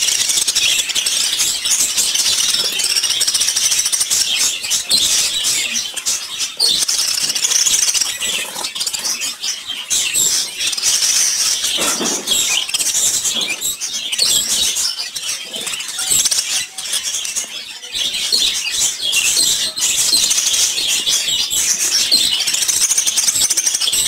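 A flock of caged budgerigars chirping and chattering continuously, many voices overlapping at once.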